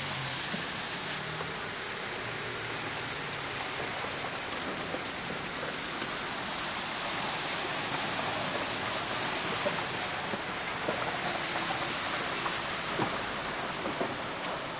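Steady hiss of water running through a flooded street, with small splashes and ticks in the last few seconds.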